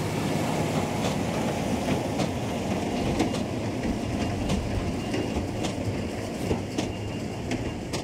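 Tractor and large square baler working through straw: a steady engine hum under a dense mechanical rattle, with scattered sharp clicks from the baler.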